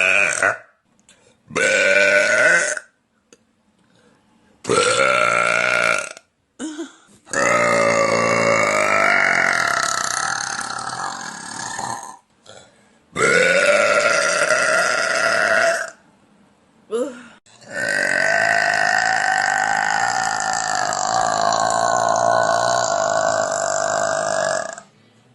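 A woman belching loudly, about five burps in a row with short pauses between them. The burps grow longer as they go, the last drawn out for about seven seconds.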